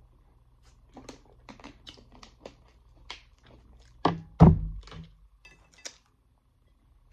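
Thin plastic water bottle crinkling and clicking as it is drunk from and handled, with two louder, deeper thuds about four seconds in.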